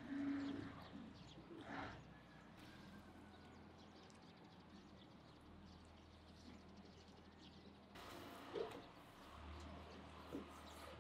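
Faint outdoor background with a brief low call right at the start. From about eight seconds in there are a few soft knocks of a knife cutting raw meat on a wooden board.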